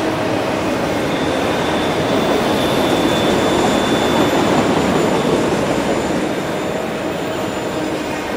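Empty autorack freight cars rolling past: a steady rumble and rattle of steel wheels on rail, with a faint high wheel squeal for a few seconds in the first half.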